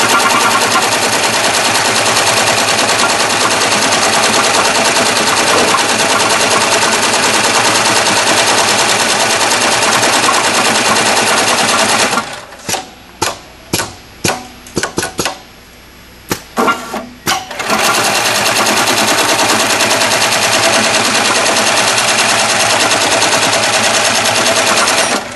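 Kingmax PSM-5020 computerized heavy-duty pattern sewing machine stitching thick webbing, a dense, steady needle clatter. About twelve seconds in it stops for some five seconds, leaving only a few separate clicks, then starts stitching again and stops just before the end.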